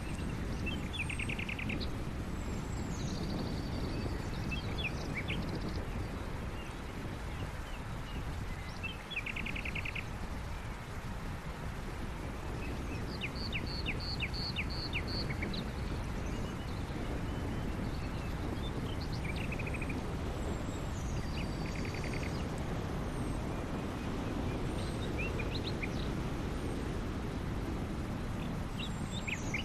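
Birds chirping and trilling in short, repeated phrases over a steady low rumble.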